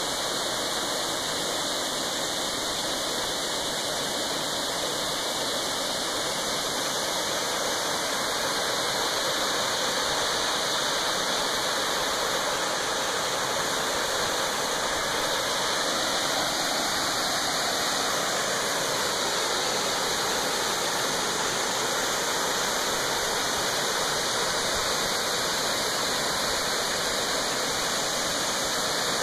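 Waterfalls pouring over rock ledges into pools, a steady, even rush of falling water.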